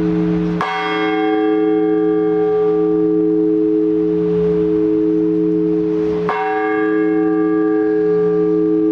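A large Orthodox church bell is struck twice, about six seconds apart. Its deep hum rings on unbroken between the strokes. This is the slow, measured single-bell blagovest that calls the faithful to the liturgy.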